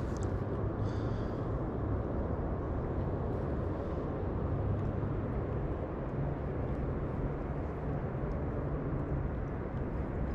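Steady low rumbling outdoor noise with no distinct events, with faint ticks now and then.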